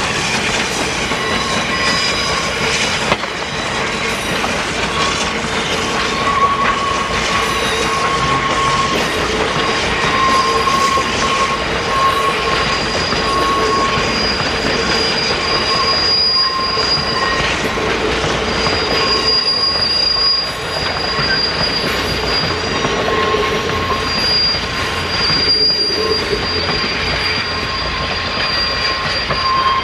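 Passenger train hauled by a Baldwin 2-8-2 steam locomotive rolling past, its wheels squealing on the rails in long, wavering high tones that fade and return, over a steady rumble of the train.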